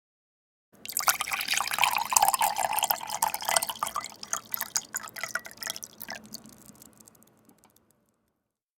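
Watery crackling and dripping that starts suddenly about a second in, then thins out and fades away over several seconds.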